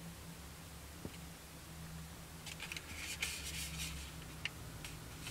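Light scratching and rustling of hands handling hard plastic model kit parts, in short bursts from about halfway, with a few small clicks, over a faint steady low hum.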